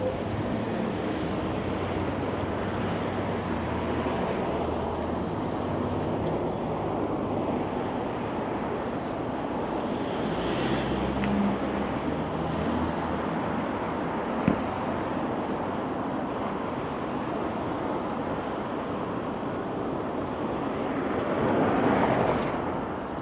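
Strong wind rushing and buffeting a wind-muffed microphone, with street traffic running underneath. A single sharp click comes about halfway, and the rush swells louder near the end.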